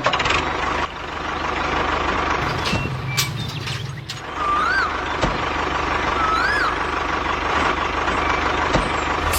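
A motor runs steadily, with two short rising-and-falling chirps about two seconds apart near the middle.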